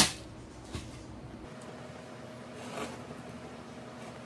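Faint handling of a cardboard box over a steady low room hum: a light tap about a second in and a soft rustle near three seconds in.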